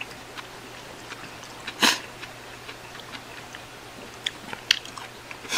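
Eating instant ramen with chopsticks: small wet chewing sounds and light clicks, with a short louder slurp of noodles about two seconds in and smaller ones near the end.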